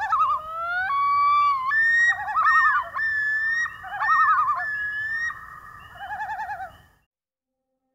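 Common loons calling: long wailing notes that rise and step in pitch, overlapping with quavering tremolo calls. The calls stop abruptly about seven seconds in.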